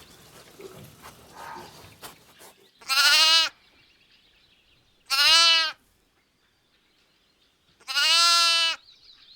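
Sheep bleating three times, each bleat under a second long with a slightly wavering pitch.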